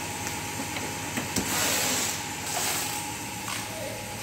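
Workshop machinery in an aluminium factory running with a steady hum. About a second and a half in there is a knock, followed by two bursts of loud hiss, the second near the three-second mark.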